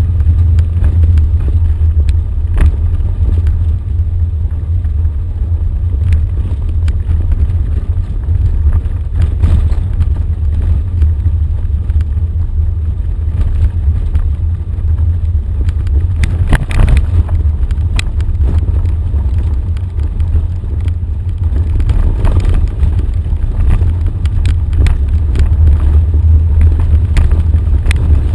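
Off-road vehicle's engine running steadily at low speed, a deep rumble heard from inside the cab, with the crunch of tyres on a dirt and gravel track. Scattered knocks and rattles from the bumpy ground, a cluster of them about two-thirds of the way through.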